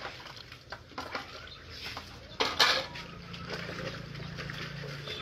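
Metal pots, lids and dishes clinking and knocking as they are washed by hand in a basin of water, with one loud clatter about halfway through. A low steady hum runs underneath in the second half.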